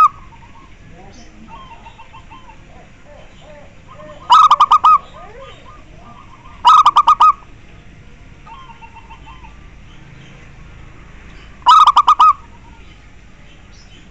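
Zebra dove (perkutut) cooing: three short, loud phrases of quick staccato notes, a few seconds apart, with faint small-bird chirps in between.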